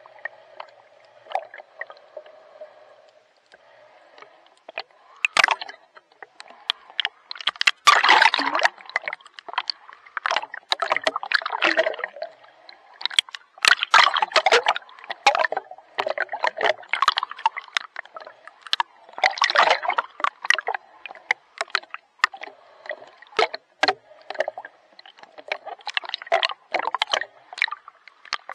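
Sea water splashing and sloshing close to the microphone in repeated bursts every two to three seconds from swimming strokes, quieter for the first few seconds.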